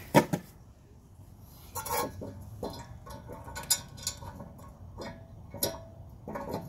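Hose hanger's star-shaped front plate and wall bracket clicking and knocking together as the plate is fitted onto the bracket: a series of sharp, irregular clicks, the loudest right at the start.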